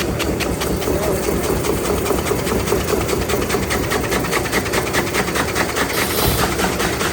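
Log debarking machine running: a steady mechanical drone with a fast, even clatter of several beats a second, and a brief hiss about six seconds in.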